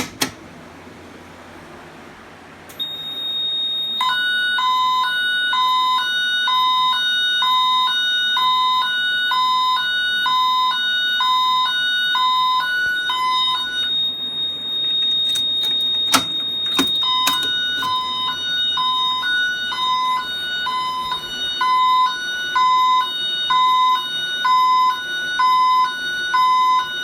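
Fire alarm voice panel sounding its high-low tone through a System Sensor speaker strobe. Two pitches alternate at about one high-low cycle a second over a steady high-pitched tone. The pattern breaks off briefly in the middle, with a few clicks, then resumes.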